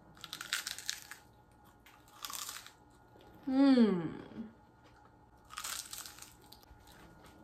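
Three crackly crunches of crisp fried buñuelos de viento (rosette fritters) being bitten and chewed. Between them, a voice slides down in pitch, like an appreciative 'mmm'.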